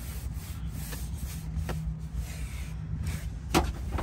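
A hand fumbling under a truck seat and its plastic trim, rubbing with light clicks and knocks and one sharper knock about three and a half seconds in, over a low rumble.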